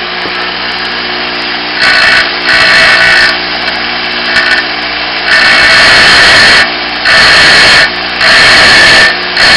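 Bench grinder running with a steady motor hum. From about two seconds in, a steel twist drill bit is pressed against the grinding wheel again and again, each touch a harsh grinding burst of about a second, as its dull cutting edge is sharpened.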